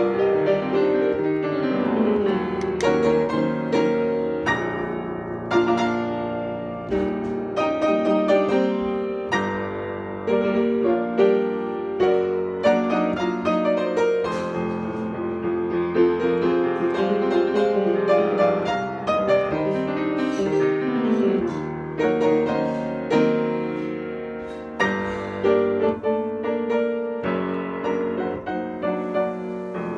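Upright piano played solo: a continuous improvisation of chords and runs of notes, with no pauses.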